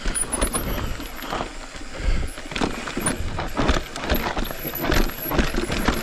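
Commencal full-suspension mountain bike riding down a rough dirt trail: tyres rolling over dirt and rocks, with the bike clattering and knocking irregularly over the bumps.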